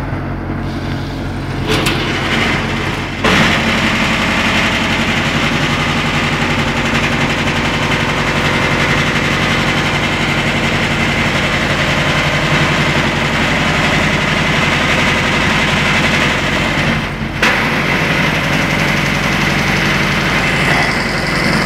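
Belt-driven wood shaving machine running, with its electric motor and cutter drum giving a steady whirr and a high whine while wood is fed in and shaved. The sound shifts briefly about three seconds in and again later on.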